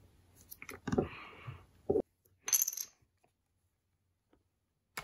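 Small plastic clicks and a short scrape as a pick-shaped tool and fingernails work at the snap-fit seam of an external hard drive's plastic case. A brief bright clink follows about two and a half seconds in, then a single click at the end.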